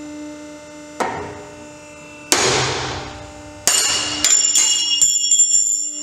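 ISC O-shaped triple-action carabiner breaking in a pull-test rig, at about 4,815 lb. There is a sharp crack about a second in and the loudest bang a little over two seconds in, followed by several sharp metallic knocks with a high ringing as the broken parts strike the rig. A steady hum from the test rig runs underneath.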